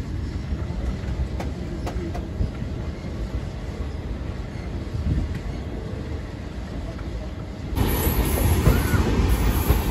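Passenger train running on the rails, heard from an open door of one of its coaches: a steady rumble of wheels on track with a few faint clicks. About eight seconds in, the rumble turns suddenly louder and fuller.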